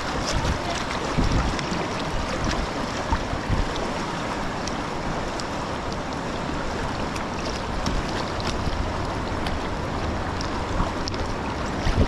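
Steady rush of flowing river water, with wind buffeting the microphone a few times.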